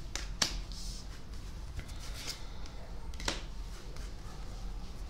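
Tarot cards being drawn and laid down on a cloth-covered table: soft sliding with a few sharp clicks of card on card, the clearest about half a second in and just past three seconds.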